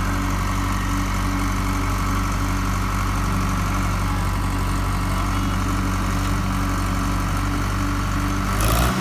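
Heavy diesel engine running at a steady speed. Near the end there is a short, loud rush of noise, and then the engine note changes.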